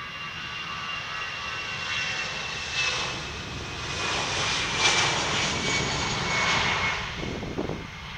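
Airbus A320's twin jet engines at takeoff power as it rolls past down the runway: a rushing roar with a high fan whine that slides slowly down in pitch as it goes by, loudest about five seconds in.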